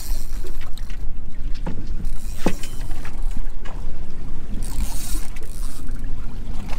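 Small boat on choppy water: a steady low rumble with water splashing against the hull in waves, and a few sharp knocks.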